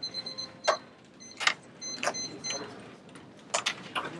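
Several sharp knocks and clatters of things being handled and set down on a table as a debater gets up. Behind them, short runs of rapid high-pitched electronic beeping on two pitches stop about two and a half seconds in.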